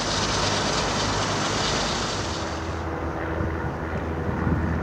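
Diesel engine of a construction machine running with a steady low hum, under a broad rushing noise that dies away about three seconds in.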